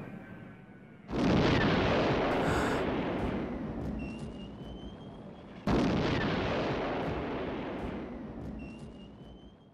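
Two heavy explosions of artillery fire, about four and a half seconds apart, each starting suddenly and fading slowly over several seconds. A faint rising whistle sounds between them and again near the end.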